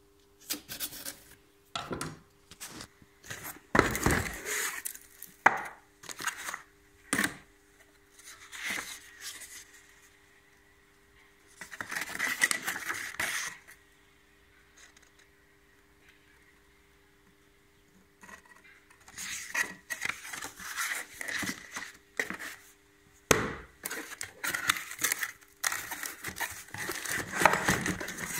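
Cardboard box and paper packaging being handled and opened: a knife cutting the box's seal, with irregular rustling, scraping and knocking and a few quiet seconds midway.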